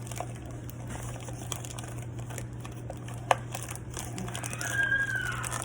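Plastic packaging crinkling, with light clicks and knocks of drink bottles and containers being handled and set on the refrigerator shelves, and one sharp knock about three seconds in.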